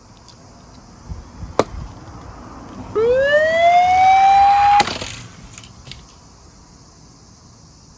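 Police siren winding up, rising steadily in pitch for about two seconds, then cutting off abruptly. A sharp click comes shortly before it.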